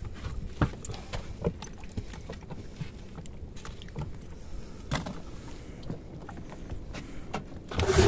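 Scattered light knocks and clicks on a fibreglass boat deck as a freshly landed fish is handled and a lure is taken off, over a low background hum. Near the end a much louder small outboard motor running cuts in.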